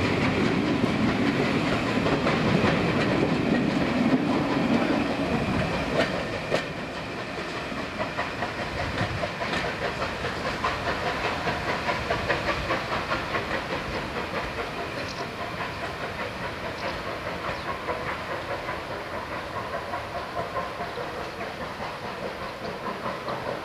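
Coaches of a steam-hauled passenger train rolling past close by, wheels clattering over the rails. About six seconds in the sound drops as the last coach draws away, leaving an even, pulsing rumble that fades into the distance.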